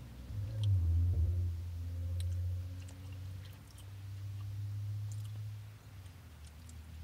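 A person chewing a mouthful of a grain-and-vegetable bowl, with small wet mouth clicks, over a steady low hum that drops away near the end.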